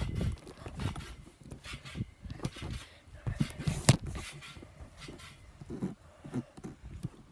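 Irregular knocks, taps and rubbing from a phone camera being handled on a hand-held pole, each knock with a dull low thud under it.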